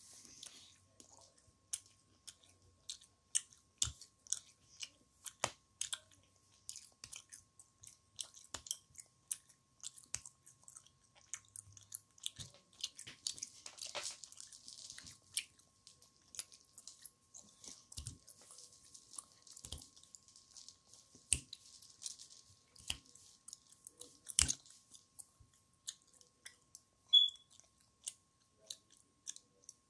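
A child chewing candy close to the microphone, the chewing broken by irregular small clicks and taps, with one sharper click near the end.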